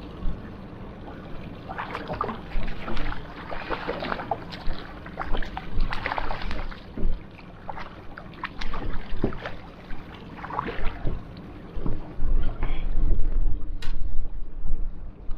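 Water splashing and slapping against a small boat's hull in irregular bursts, over a low rumble.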